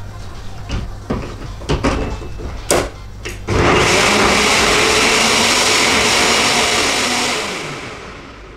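Nutribullet blender: the plastic cup knocks and clicks as it is seated on the base, then about three and a half seconds in the motor starts and blends onion, ginger and peppers to a purée, running steadily for a few seconds before winding down near the end.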